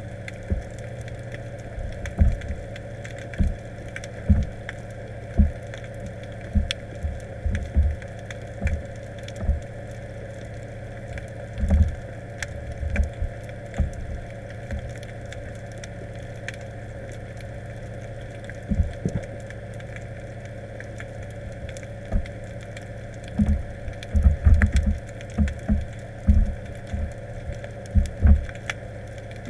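Underwater sound picked up by a camera in a waterproof housing: a steady muffled hum with irregular low thumps and knocks, several in quick succession near the end, and faint scattered clicks.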